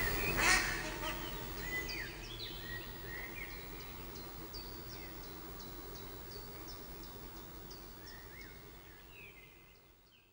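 Outdoor ambience of birds singing: many short, high repeated chirps and a few falling notes over a low steady background noise, with a brief scratchy sound about half a second in. It all fades out gradually toward the end.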